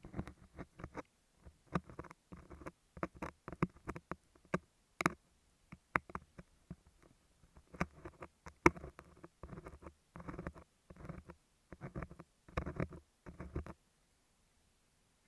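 Ear pick scraping and picking at a beeswax sheet on an earphone microphone: irregular runs of close crackling with sharp clicks and brief pauses between them.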